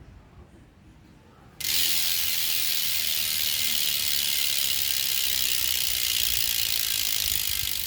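Bicycle rear hub's freewheel ratchet clicking so fast it blurs into a steady high buzz, as from a freely spinning rear wheel; it starts abruptly about one and a half seconds in, after faint birdsong.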